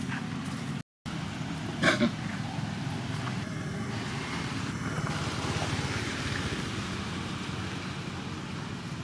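Steady outdoor background rumble and hiss, cut off briefly by a short dropout near the start, with one brief sharp sound about two seconds in.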